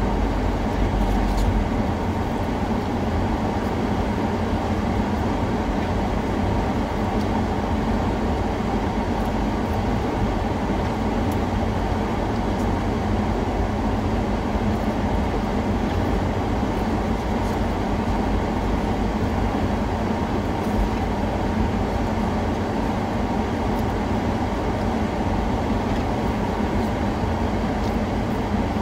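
Steady low rumble of a moving vehicle, unchanging throughout.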